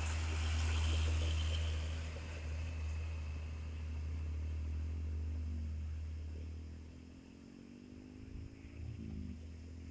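Hino tandem-axle truck's diesel engine pulling away under load, its deep drone loudest as it passes and then fading as it goes off. The engine note climbs and drops twice as it shifts up through the gears.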